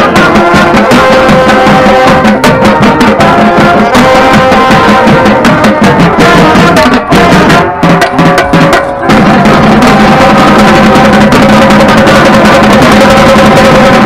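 Marching band drumline and horns playing, very loud. Tenor drums (quints) are struck with rapid strokes right at the microphone, over held notes from the brass and saxophones.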